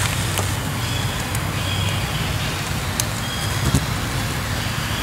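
Steady low rumble and hiss of background noise, with a couple of short clicks about three seconds in and a few faint, brief high tones.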